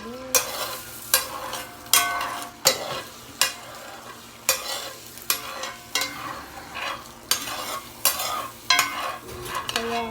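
Eggs frying in a pan with a steady sizzle, while a utensil stirs them, scraping and knocking against the pan about once a second.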